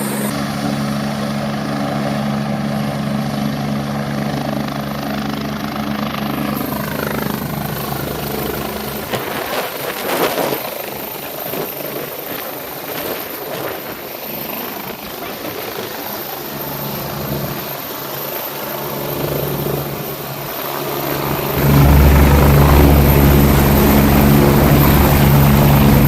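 Helicopter running, a steady drone of turbine and rotor. Its tones slide lower about seven seconds in, and about 21 seconds in it suddenly gets louder with a deep rumble.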